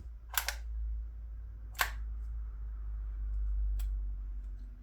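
DYMO Organizer Xpress handheld embossing label maker squeezed letter by letter: a sharp click about every one to two seconds, over a steady low hum.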